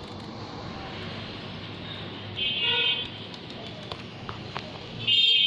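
Steady street background noise with a high-pitched horn tooting twice: once for about half a second midway, and again near the end.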